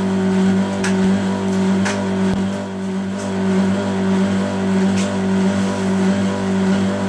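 Indesit WIDXL 1200 washing machine running with a loud, steady grinding hum and a few scattered clicks. It is the grinding noise that the machine makes during washes, a fault whose cause the owner doesn't know.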